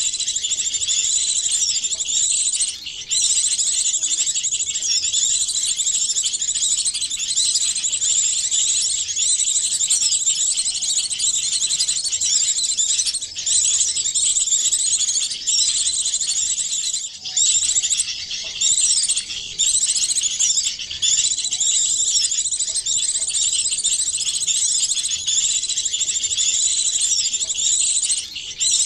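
Bird-lure recording of many small songbirds calling at once, layered into a continuous high-pitched chattering of quick chirps and twittering, with a few brief pauses in the mix.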